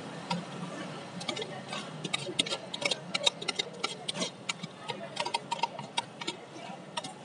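Metal spoon clinking and scraping against a stainless-steel cup while thick yogurt is scooped into it, in many quick, irregular clicks over a steady low hum.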